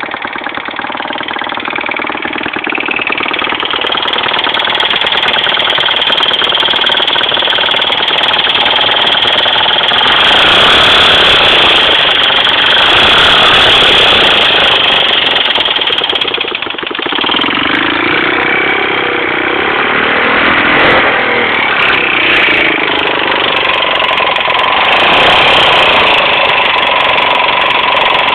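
Kawasaki KLR250 single-cylinder four-stroke engine running with a loud, rapid mechanical clatter that a valve adjustment has not cured; the owner had suspected the cam chain tensioner. The engine speed rises and falls a couple of times a bit past halfway.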